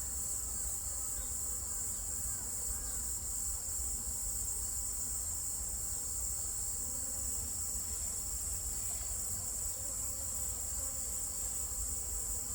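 A steady, high insect chirring carries on throughout, with faint buzzing of Asian honeybees (Korean native bees) flying past the hive entrance, a few fly-bys rising and falling in pitch in the first few seconds.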